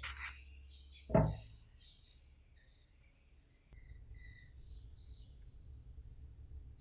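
A single knock about a second in, followed by faint, high-pitched chirping like crickets or small birds in short broken notes, over a low steady hum.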